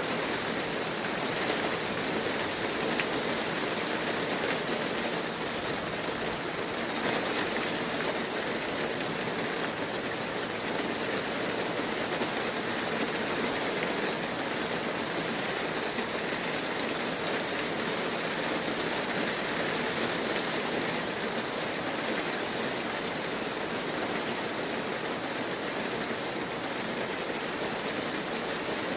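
Heavy rain falling steadily: a dense, even hiss of drops on surfaces, with now and then a single sharper drop hit standing out.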